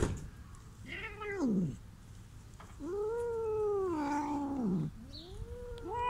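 Hungry stray cats meowing for food: three drawn-out meows, the middle one about two seconds long and dropping in pitch at its end, the last starting near the end.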